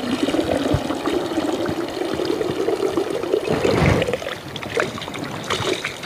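Water pouring and dribbling from the soaked roots of a clump of water hyacinth held up over a river, splashing back into the water. It runs steadily for about four seconds, then thins to a lighter dribble.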